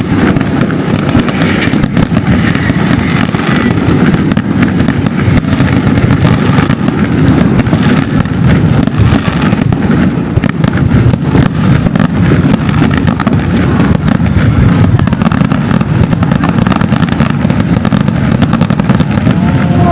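Fireworks display going off in a continuous barrage: rapid overlapping bangs and crackles that blend into a steady, loud rumble.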